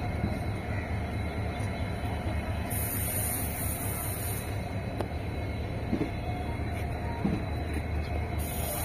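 Indian Railways passenger coaches of a mixed ICF and LHB rake rolling along the track as the train departs: a steady rumble of wheels on rails, with a couple of faint knocks near the end.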